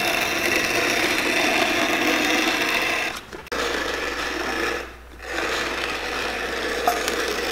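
Cobbler's shoe-repair machines running with a steady mechanical noise that breaks off briefly about three seconds in and again about five seconds in.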